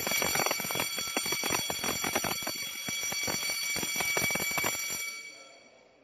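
Electric fire alarm bell of a conventional fire detection and alarm system ringing loudly with rapid hammer strokes, set off from the control panel's evacuate function during a test. It stops about five seconds in and the ring fades away.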